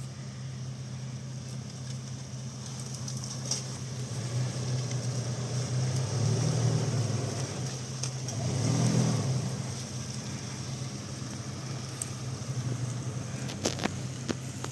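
Car engine running steadily, its revs rising twice around the middle, with a few sharp knocks near the end.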